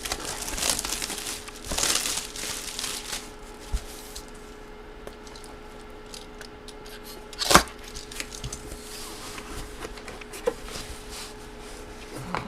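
Packaging of a mystery jersey box being torn open: crinkling and tearing in the first few seconds, then a single sharp rip or knock about seven and a half seconds in, with small handling clicks afterwards.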